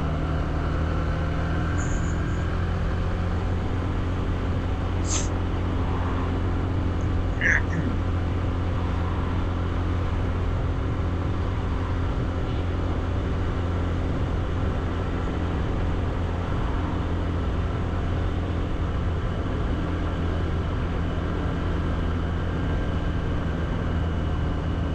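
Honda CB125F's single-cylinder four-stroke engine running at steady revs while riding, with a few brief high chirps, the loudest about seven and a half seconds in.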